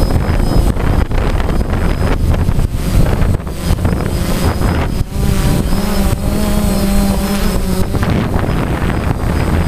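DJI Phantom quadcopter's four motors and propellers, heard from the camera on board, giving a steady buzzing hum whose pitch shifts now and then. Wind buffets the microphone over the top.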